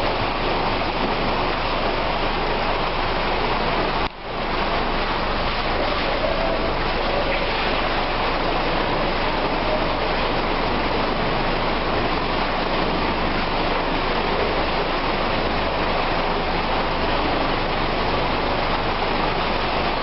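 IVAC PV500 pneumatic industrial vacuum running while it pumps a mine sump: a loud, steady rushing noise that drops out briefly about four seconds in.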